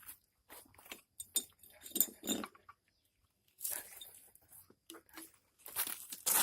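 Glassware clinking and being handled: a few short glassy clinks about two seconds in, among irregular knocks and rustling, with a louder rustling stretch near the end.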